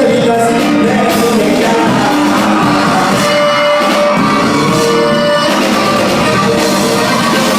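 Live band music with singing, loud and continuous, with the echo of a large hall.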